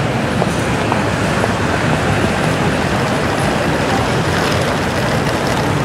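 Steady background noise of a busy terminal hall: an even rumble and hiss with faint scattered clicks.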